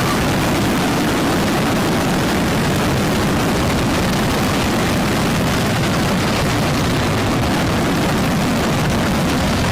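A huge mass of fireworks going off at once, so many overlapping bangs and crackles that they merge into one steady, loud roar.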